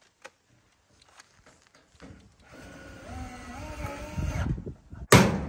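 Cordless drill running for about two seconds, its pitch wavering as it drives a screw through steel trim on a wooden frame. It is followed near the end by one sharp, loud metallic bang.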